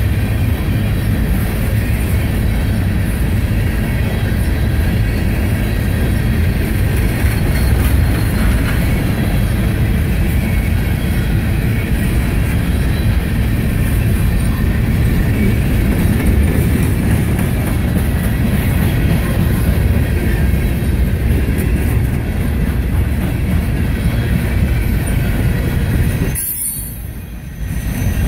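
Freight train coal hopper cars rolling past close by: a steady rumble and clatter of steel wheels on rail, with some high wheel squeal. The sound drops away sharply for about a second near the end.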